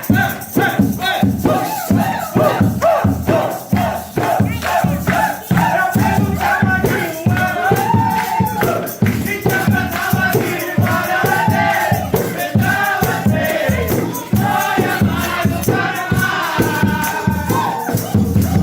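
Festive music with singing over a fast, steady beat, with the hubbub of a crowd of people.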